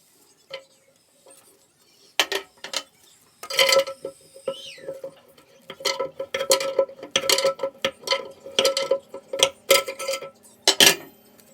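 Irregular clinks and knocks of hard objects being handled, such as toilet tank parts and tools, sparse at first and coming in quick runs from about halfway in.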